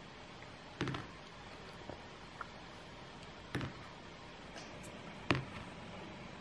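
Small wooden die thrown onto a sheet of paper on a table: three short clattering knocks, a couple of seconds apart, the last the loudest, over faint room hiss.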